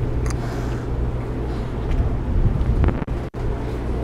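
Wind buffeting the microphone over a steady low hum and rumble. The sound cuts out twice very briefly a little after three seconds.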